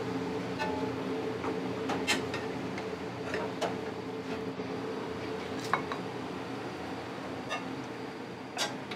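Restaurant kitchen sounds: a steady machine hum under scattered clinks and knocks of dishes and utensils, the sharpest about two seconds in and again a little past the middle.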